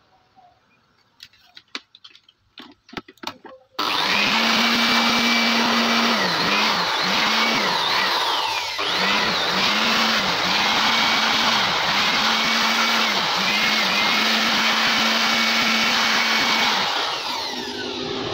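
A few light clicks, then about four seconds in a loud, steady machine-like whirring starts abruptly and runs on, with a low tone in it that dips and rises.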